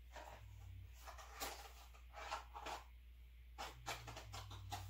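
Faint scattered clicks and light scrapes of hand work on the engine, over a steady low hum.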